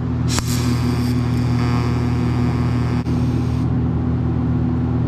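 TIG welder humming steadily while tack-welding onto the mini bike's steel frame, with the hiss of the arc from under half a second in until about three and a half seconds in.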